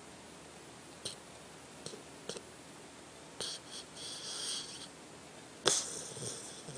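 Sleeping dog making snoring noises through its nose: a few soft clicks, then a couple of hissing breaths, and a louder, sharper one near the end.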